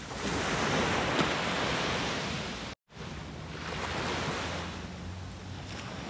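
Small waves breaking and washing up a sandy shore, a steady rush of surf. A brief silent gap about three seconds in cuts it, after which the surf swells again a little more softly.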